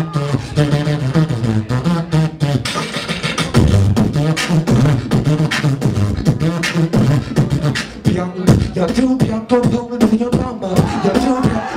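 Beatboxer performing into a handheld microphone: a quick rhythm of vocal kick and snare clicks over a hummed bass line, with a higher sung line laid over the beat in the second half.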